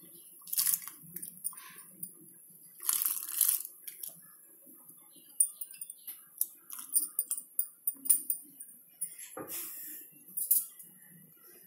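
Sweet corn kernels tipped from a bowl into a pot of boiling water, a short rushing hiss about three seconds in, followed by scattered light clicks and a thump as the pot and bowl are handled.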